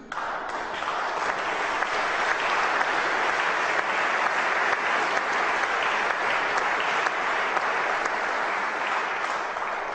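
Audience applauding: dense clapping from a large crowd that starts abruptly, holds steady, and eases off slightly near the end.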